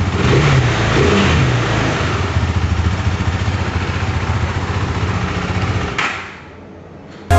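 KTM RC390's single-cylinder engine idling, blipped up briefly a couple of times in the first second or so, then settling back to a steady idle. Near the end the engine sound falls away to quiet.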